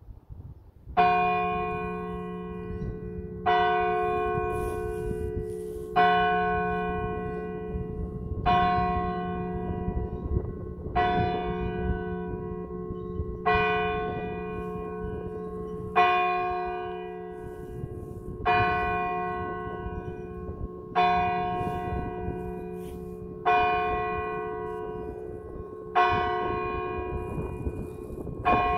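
A single large church bell, the church's lowest bell tuned to G-flat, striking the hour: one stroke about every two and a half seconds, twelve in all, each ringing out and dying away before the next.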